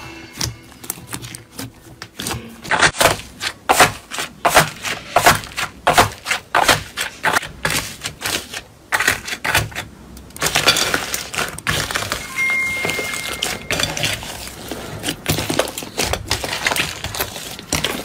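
Crunchy slime being pressed and poked, giving many quick crisp crackles and clicks, which run together into a denser crackling from about ten seconds in.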